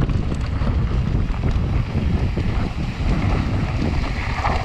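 Wind buffeting a mountain bike rider's action-camera microphone during a fast descent, over the rumble of knobby tyres on loose gravel.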